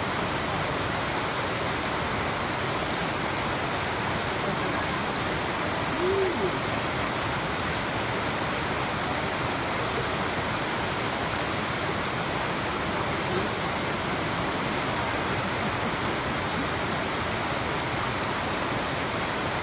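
Fast creek water rushing over rock slabs: a steady, even wash of noise.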